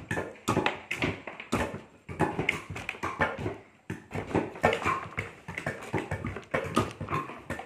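Areca nut seeds being split one by one with a hand-operated lever blade splitter: a run of sharp, irregular knocks and cracks, about two a second, as the blade comes down through each seed.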